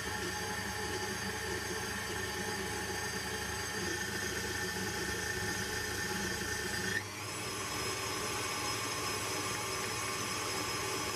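KitchenAid stand mixer's motor running steadily with its wire whisk beating batter in a stainless steel bowl. About seven seconds in there is a brief click and the motor's tone changes, then it runs on steadily.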